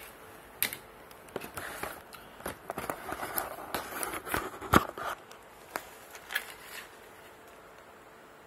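Handling of a cardboard box and its packaging around a circuit board: a run of clicks, knocks and rustles over about six seconds, the loudest knock about five seconds in, then settling.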